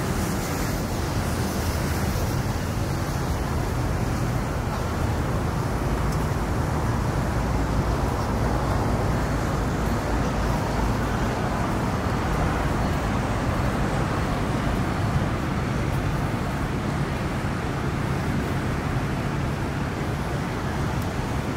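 Steady noise of city road traffic, with no single vehicle standing out.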